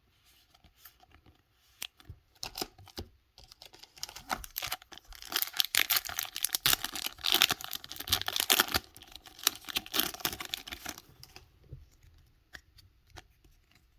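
Foil booster pack wrapper being torn open and crinkled by hand, a dense run of crackling from about four seconds in until about eleven seconds, with a few light clicks before and after.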